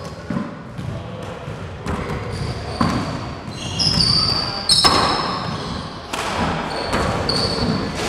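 Handball rally in a four-wall court: a rubber handball smacks sharply off gloved hands, the walls and the hardwood floor about once a second, each hit ringing in the enclosed court, with sneakers squeaking on the wood floor between hits.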